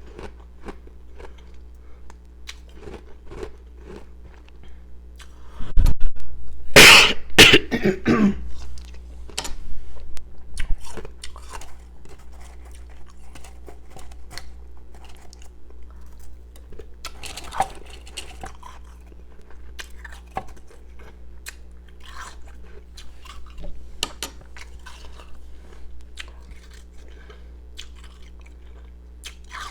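Close-miked crunching and chewing of powdery ice pieces: a stream of small crackles and crunches, with a loud burst of crunching bites about six seconds in.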